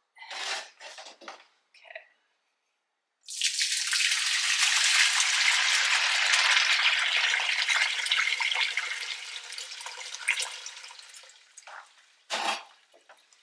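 Chicken broth poured from a roaster pan through a cloth-lined strainer into a bowl: a steady splashing pour that starts about three seconds in and tapers off over its last couple of seconds. Short knocks of the pan being handled come before and after.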